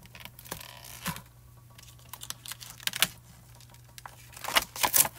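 Clear photopolymer stamps and their plastic carrier sheet being handled, a stamp pulled from the sheet: scattered small clicks and crinkles of plastic, busier and louder near the end, over a faint steady low hum.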